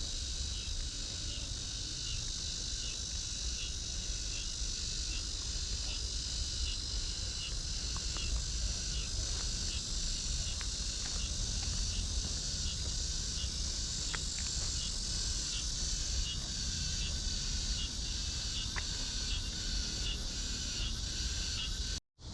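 Cicadas shrilling in summer trees: a steady high buzz with a second pulsing call about twice a second over it. Low rumble sits underneath, and the sound cuts off abruptly near the end.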